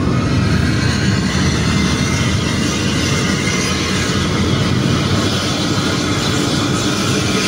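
Hino intercity bus's diesel engine and exhaust running steadily under way, a continuous drone heard from inside a car following close behind, mixed with the car's road noise.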